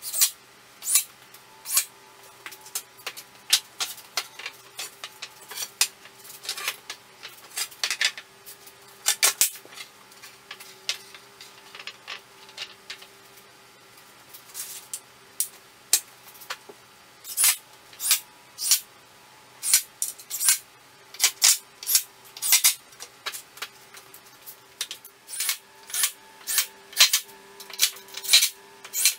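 Irregular sharp clicks and knocks of hand tools and fasteners at work on a wooden pallet, some coming in quick pairs or clusters, over a faint steady hum.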